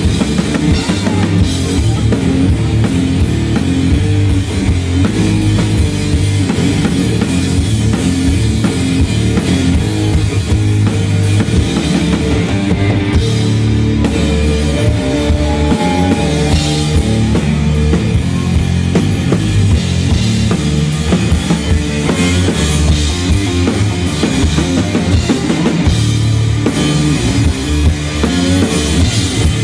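Live rock music played loud by a guitar-and-drums duo: electric guitar over a drum kit with a steady beat.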